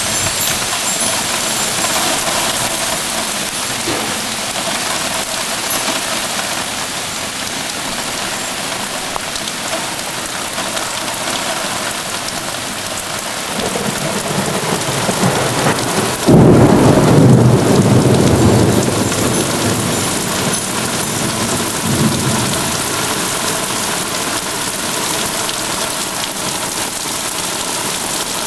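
Thunderstorm: steady heavy rain hissing, with a thunderclap about halfway through. A low rumble builds, then breaks into a sudden loud crack and rumble that lasts a few seconds and dies away, with a smaller rumble a few seconds later.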